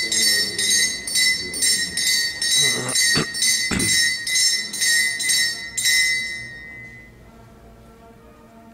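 Altar bells shaken in a steady run of rings, about two a second, then left to ring away about six seconds in. This is the ringing at the elevation of the chalice during the consecration at Mass.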